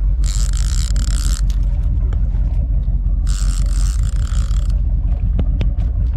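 Boat engine running at slow trolling speed, a steady low rumble. Twice, about a second at a time, a high mechanical whirring cuts in over it, and a couple of short clicks come near the end.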